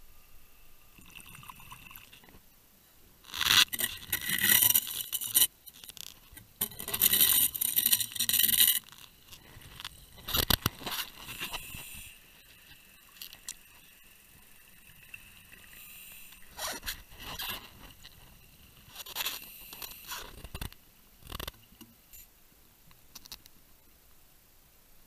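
Scraping and crunching of an underwater camera rubbing against a barnacle-encrusted wooden pile, in two loud bursts of about two seconds each, followed by fainter scrapes and a few sharp knocks.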